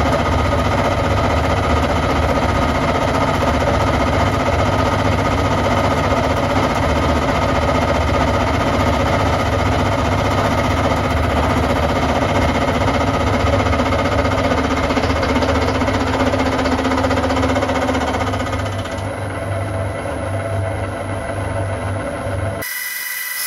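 Centec 2B horizontal milling machine with a disc cutter on its arbor, running steadily while taking an eighth-of-an-inch-deep cut through aluminium in one pass: a loud mechanical hum with several steady whining tones. Shortly before the end the sound changes abruptly to a thinner, higher whir.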